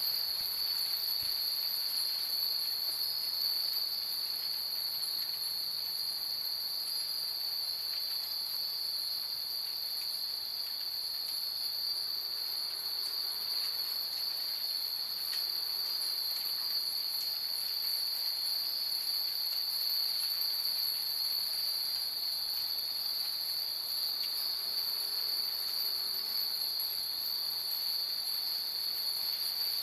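A continuous high-pitched insect trill in the night, unbroken and unchanging, with a few faint tinkles of hanging wind chimes.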